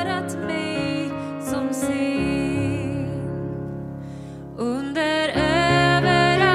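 A woman singing a slow hymn into a microphone, accompanied by piano-sounding chords on a Roland electronic keyboard. Near the middle the voice drops away over a held chord that slowly fades, and the singing comes back in strongly just before five seconds.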